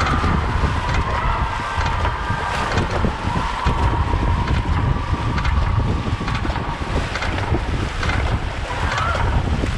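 Wind buffeting the microphone over rushing, splashing water as a dragon boat is paddled at racing pace.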